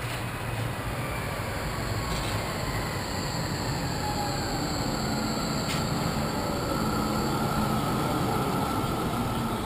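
A tram running at the stop, rumbling steadily, its motor whine slowly falling in pitch as the rumble grows louder. Two short clicks, about two and six seconds in.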